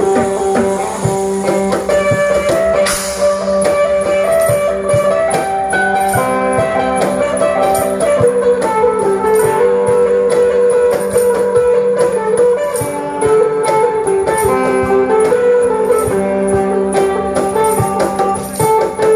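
Sape, the plucked boat-shaped lute of Sarawak, playing a melody over a steady drone, with a rattling percussion keeping a regular beat from about three seconds in.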